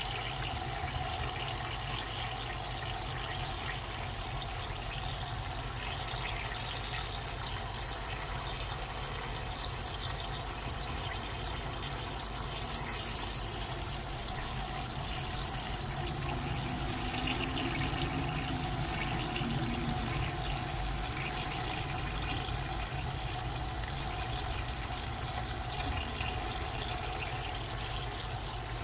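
Dry ice sublimating in water, a steady bubbling of carbon dioxide gas that grows a little louder around the middle.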